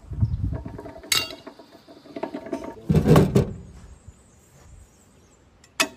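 Steel hand tools clinking and knocking against a mini excavator's bucket and thumb linkage. There is a sharp clink about a second in, a heavier clank around three seconds, and another sharp clink near the end.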